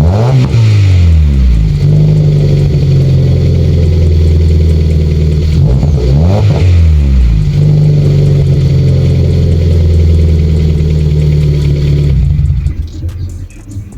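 Hyundai Veloster 1.6 GDI four-cylinder engine running with its muffler deleted and replaced by straight motorcycle exhaust piping, loud at idle and blipped twice, once at the start and again about six seconds in. The engine sound drops away near the end.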